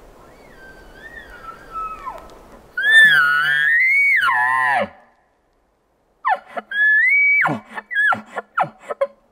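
Bull elk bugling: a faint high whistle first, then a loud call that climbs into a high whistle and drops away, then a second high whistle followed by a string of short grunting chuckles near the end.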